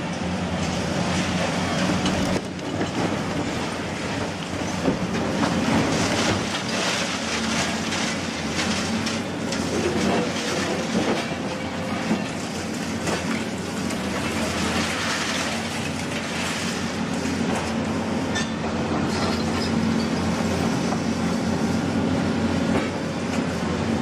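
Heavy machinery running, with a steady low drone and continuous rattling and clatter.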